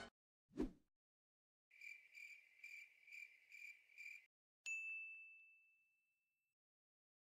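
A string of sound effects: a short dull thump, then a cricket chirping in a high, pulsing trill for a few seconds, the familiar 'awkward silence' effect, then a single bright ding that rings out and fades.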